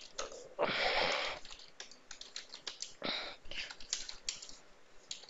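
Computer keyboard typing: scattered, irregular key clicks as a login and a command are typed. About a second in there is a louder breathy hiss lasting under a second, and a shorter one about three seconds in.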